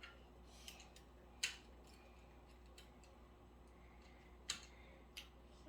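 A few faint, sharp clicks or taps at irregular intervals, the two loudest about a second and a half in and near the end, over quiet room tone.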